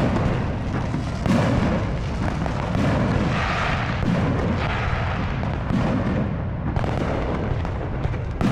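Fireworks display: shells bursting in a continuous run of booms, with a sharp bang at the start and another about a second in.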